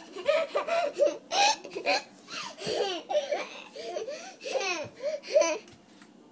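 A young boy laughing in a quick run of short, high-pitched giggles that stops about a second before the end.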